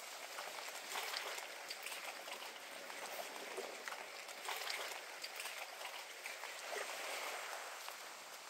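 Faint outdoor ambience over a lagoon: a steady hiss of water and breeze, with light irregular ticks of footsteps on the wooden deck boards.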